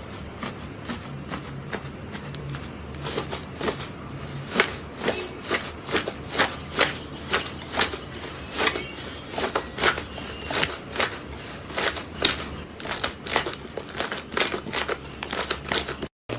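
Slime being squeezed and worked by hand, giving a run of sharp clicking pops, about two to three a second, that grow louder a few seconds in.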